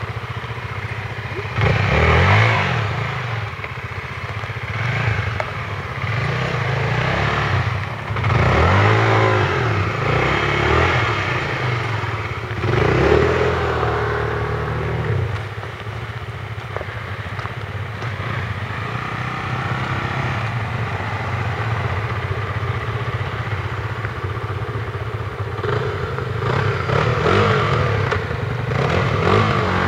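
Single-cylinder off-road trail motorcycle engine revved in repeated surges that rise and fall, with strong bursts about two, eight and thirteen seconds in, as the rear tyre struggles for grip on a slippery mud climb.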